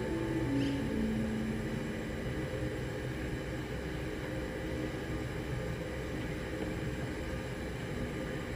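Steady low background hum and noise with no distinct event. The last held notes of background music die away in the first second or so.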